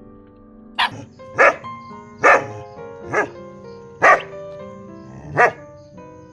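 A street dog barking six times, single sharp barks spaced about a second apart, over steady background music.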